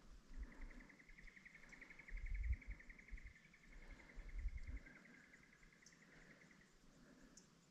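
An insect trilling: a rapid pulsed buzz at one steady pitch for about six seconds, ending shortly before the close. Dull low thumps sound about two seconds in and again around four and a half seconds.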